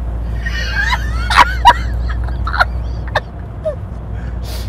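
A woman and a man laughing hard inside a moving car's cabin, loudest in the first two seconds, over the steady low rumble of the engine and road.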